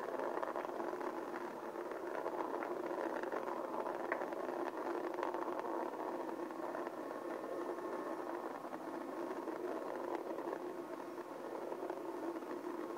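Steady rushing rumble of the space shuttle's ascent, heard from the launch broadcast through a small computer speaker, with no deep bass.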